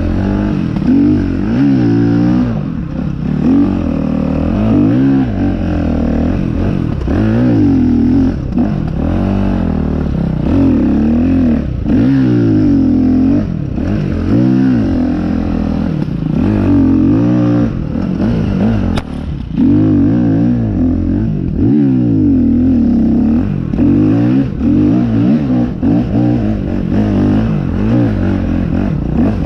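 Dirt bike engine being ridden on a trail, revving up and dropping back over and over, its pitch rising and falling every second or two.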